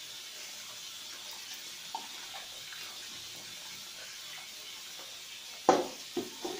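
Raw chicken wings being washed by hand in water in a metal bowl: water sloshing and splashing over a steady hiss, with a sharp clank of the bowl about five and a half seconds in and two lighter knocks after it.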